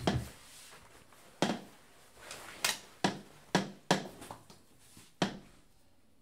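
A series of about eight short, sharp clicks and knocks, unevenly spaced, from small hard objects being handled and set down on a phone-repair workbench.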